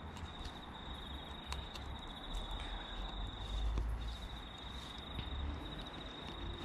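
An insect, cricket-like, trilling steadily in a high, finely pulsed chirr, with a few brief breaks. Under it are a low rumble and a few faint clicks.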